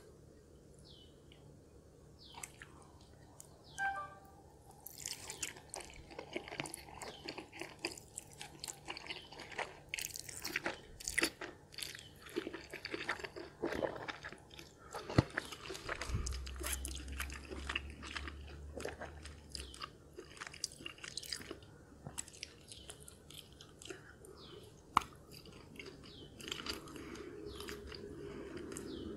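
Close-miked eating sounds: a person chewing and slurping cheesy instant noodles with bacon, a dense, irregular run of wet mouth smacks and clicks with a few sharper ones.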